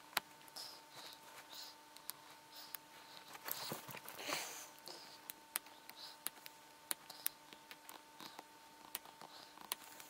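Small sharp metal clicks and scrapes of a thin tool tip working at the spring bar of a stainless mesh watch strap, with a longer, louder scrape about three and a half seconds in. The spring bar is seized with rust and does not give.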